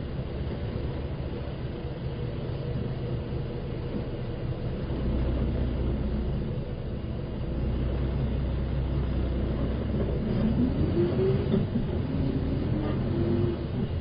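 City route bus's diesel engine running, heard from inside the passenger cabin: a steady low hum that grows deeper from about five seconds in, with the engine's pitch rising a couple of times near the end.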